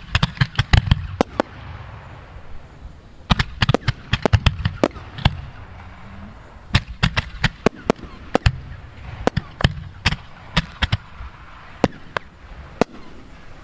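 Fireworks display: firework shells bursting in rapid clusters of sharp bangs, with a few lone bangs near the end.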